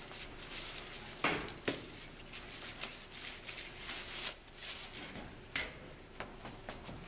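Clatter from a wheeled metal cart being rolled and a cardboard trifold display board being set up on it, with two sharp knocks a little over a second in and another later, then quick footsteps on a wooden floor near the end.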